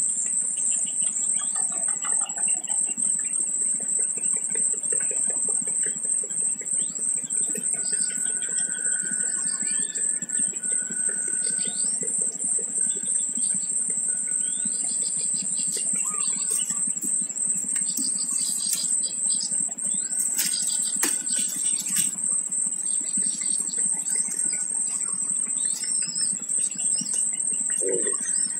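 Outdoor bird chirping: many short, scattered calls over a steady high-pitched drone. There are a few sharp clicks about two-thirds of the way through.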